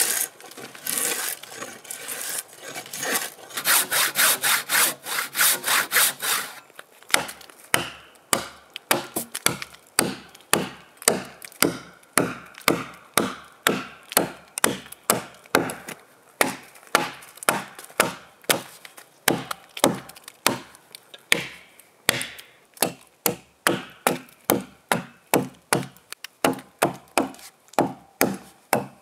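Hand tool cutting into a pine log: a fast run of strokes for about the first six seconds, then steady strokes about two a second.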